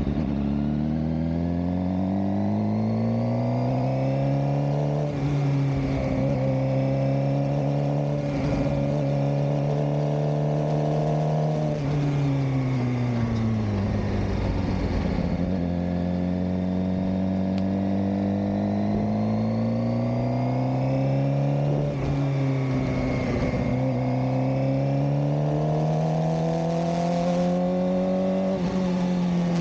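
Suzuki GSX-R600 inline-four motorcycle engine running on the road. The revs climb, hold steady and drop back several times as the bike accelerates and eases off.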